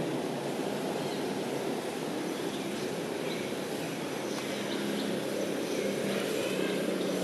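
Outdoor ambience: a steady low rumble, growing a little louder with a steady hum near the end, with faint, scattered bird chirps.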